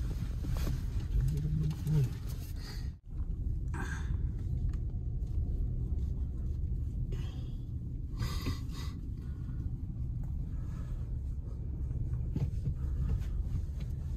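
Steady low rumble of a car's engine and tyres heard from inside the cabin as the car rolls slowly over gravel. It drops out abruptly for an instant about three seconds in, with a few faint, brief voices now and then.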